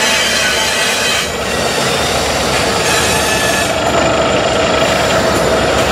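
Double-stack intermodal well cars rolling past, a steady rattle and rumble of wheels on rail with thin, steady squealing tones from the wheels.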